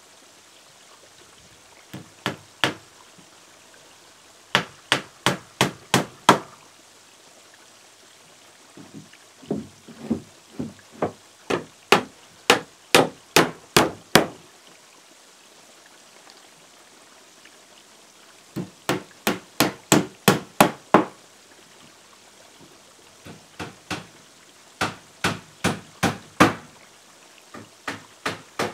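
Hammer driving nails into wooden roof boards, in runs of quick strikes about three a second, some runs starting with lighter taps, with pauses of a few seconds between runs.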